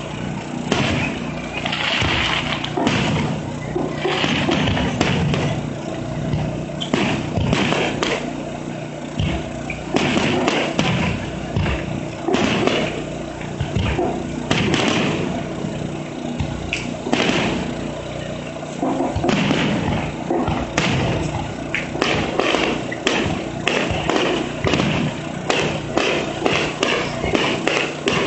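Aerial firework shells bursting one after another, a continuous barrage of booms at irregular, often rapid intervals, with crackling stars hissing between the bangs.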